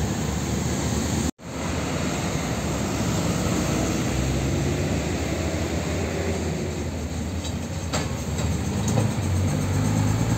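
Road traffic noise of heavy diesel trucks and motorcycles passing, with an old cab-over tanker truck's diesel engine running as it drives by, getting louder near the end. The sound cuts out for an instant about a second and a half in.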